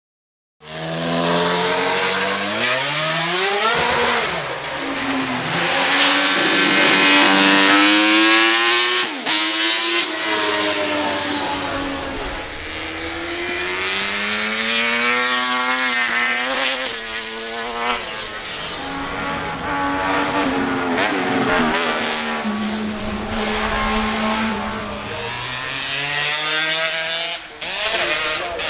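High-revving racing motorcycle engines accelerating hard and passing, the engine pitch sweeping up through the gears and falling away again many times over. The sound changes abruptly a few times, as from one bike to the next.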